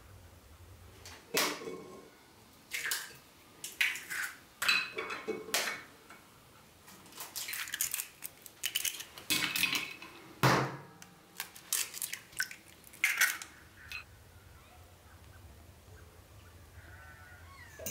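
Kitchen utensils and pots clinking and knocking together: a run of irregular clinks and knocks, some with a short ring, that stops about two-thirds of the way through.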